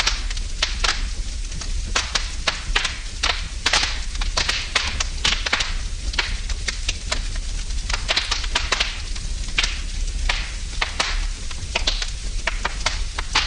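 Wood fire burning in a fireplace, crackling and popping irregularly with many sharp snaps, over a steady low rumble.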